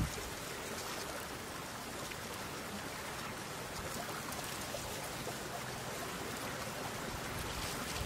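Steady, even rush of flowing water.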